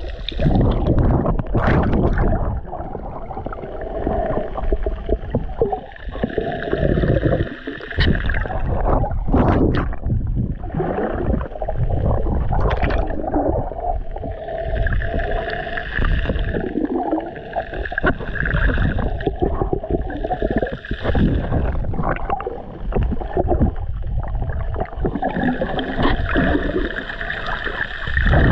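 Muffled water sloshing and gurgling around a camera held under water, loud and uneven, swelling and dipping every second or two.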